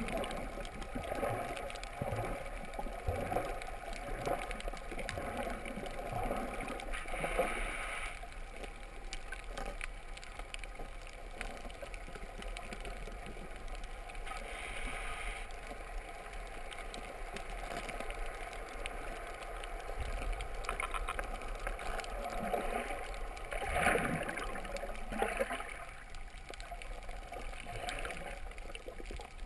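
Muffled water sloshing and gurgling around a GoPro camera held underwater while snorkeling, coming in irregular surges, with a louder swell near the end.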